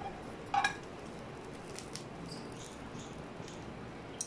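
Bread frying in a little oil in a nonstick pan: a faint, steady sizzle with small scattered crackles. A metal utensil clinks against the pan about half a second in, and there is a short click near the end.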